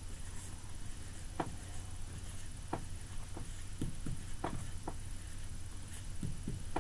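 Dry-erase marker tapping and scratching on a whiteboard as a word is written by hand: a string of short, sharp ticks at irregular intervals, over a low steady hum.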